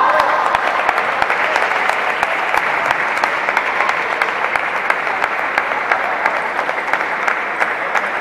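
Spectators applauding, a dense patter of many hands clapping that eases slightly toward the end.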